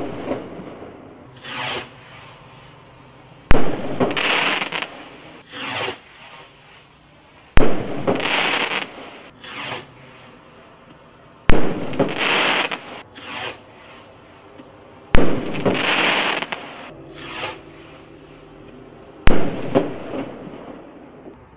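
Hallmark Fireworks Mystical rockets firing one after another, about every four seconds. Each bursts with a sharp bang followed by a second or two of crackle, and the short whoosh of the next rocket climbing comes in between. Five bursts are heard.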